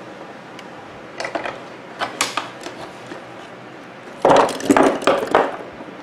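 Steel lamination plates from microwave oven transformers clinking as they are handled, with a few light clicks and then a louder clatter of metal on metal about four seconds in that lasts around a second.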